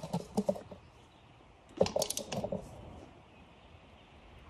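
Torque wrench and socket working on the rear sprocket's nuts: a few short metallic clicks and clinks right at the start, then another cluster about two seconds in.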